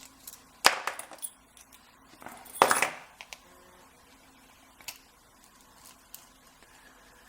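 Small metal clicks and clinks of a padlock and lockpicking tools being handled, with two louder metallic rattles about a second in and near the three-second mark.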